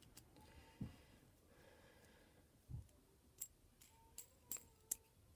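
Near silence with a few faint clicks and taps: small parts being handled and pressed together, two soft knocks and then a quick run of sharp clicks in the second half.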